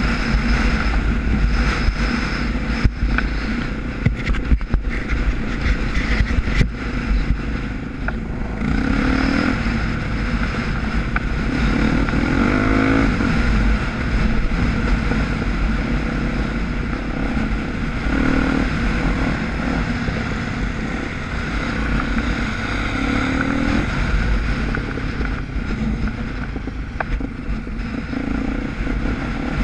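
Dirt bike engine heard from the bike itself, running hard along a rough dirt track, its revs rising and falling as the rider works the throttle. There are sharp knocks from the bike over bumps in the first several seconds.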